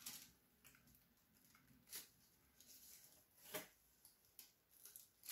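Near silence: room tone with a few faint soft taps, the clearest about two seconds and three and a half seconds in.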